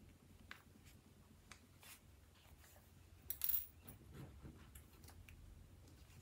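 Pins and fabric handled on a tabletop: faint, scattered light clicks and taps, with a brief louder rustle about three and a half seconds in.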